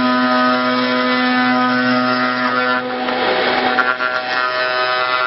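4-axis CNC router running, its spindle making a steady multi-toned whine over a rough cutting noise; the lowest tone drops away about three seconds in.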